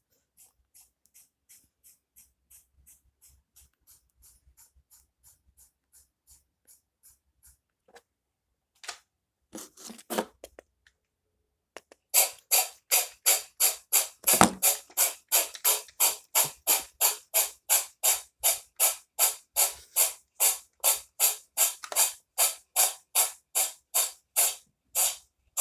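A sneeze sound looped into a rapid rhythm: short hissing bursts about three a second. They are faint for the first several seconds, with a few louder, fuller sneezes near the middle, then loud and regular through the second half.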